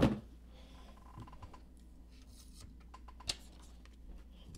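Hands handling plastic trading-card cases: a thump right at the start, then light clicks and taps, with one sharper click a little past three seconds in.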